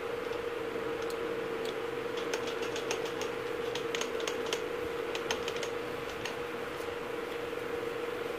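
A run of light clicks and small rattles, most of them in the middle few seconds, as an angle grinder fitted with an abrasive polishing wheel is handled and its wheel turned by hand, over a steady hum.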